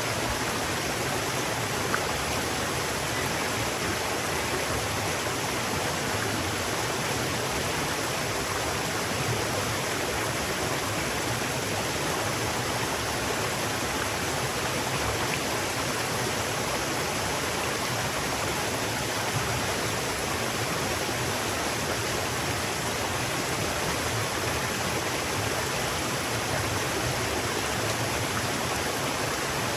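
River water flowing steadily, an even, unbroken rush with no changes in level.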